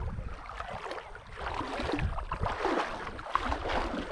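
Water splashing and sloshing, with uneven wind rumble on the microphone.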